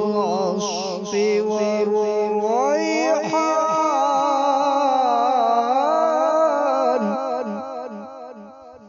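Male voice in melodic Quran recitation (tajweed), drawing out a long ornamented phrase whose pitch wavers up and down, then fading away over the last couple of seconds.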